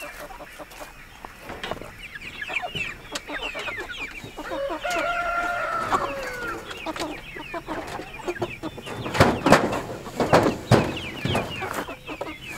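A flock of meat chickens clucking and squawking, with one long drawn-out call about halfway through. Near the end there are a few loud clattering thumps as a bird is grabbed and lifted out.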